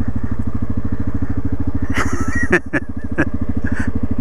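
Yamaha ATV's single-cylinder four-stroke engine running steadily at low speed on a trail ride. A little past halfway there are a few sharp knocks and rattles, and the engine eases off briefly.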